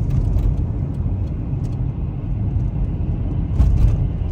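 Steady low rumble of a road vehicle on the move, with a few short knocks a little before the end.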